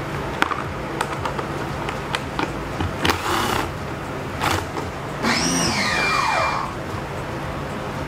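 12-volt cordless drill-driver with an 8mm socket spinning nuts off, in short bursts: a brief run about three seconds in, a quick blip, then a longer run of about a second and a half whose whine rises and then falls. Light clicks of the socket on the nuts come before the runs.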